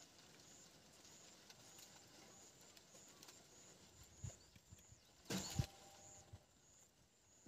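Near silence, broken by a few faint knocks. The loudest is a short double knock about five seconds in, from a knife chopping at a nungu bunch up in the crown of a palmyra palm.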